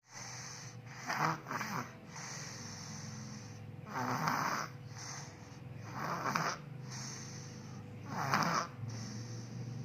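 A small child snoring, with a harsh snore about every two seconds, four in all.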